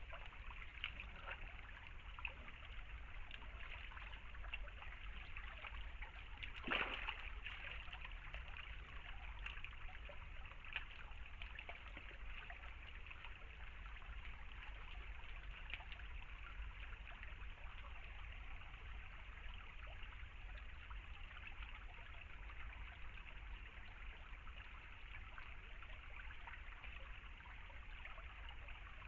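Shallow stream trickling steadily over stones, with a single sharp click about seven seconds in.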